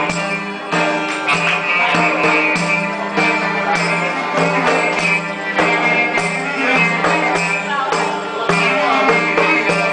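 Live Greek folk music: a clarinet plays the melody over a steady beat of percussion.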